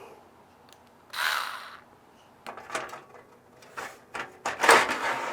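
Power supply being slid out of a PC case: a short scrape about a second in, a few light clicks and knocks, then a longer, louder scraping slide near the end.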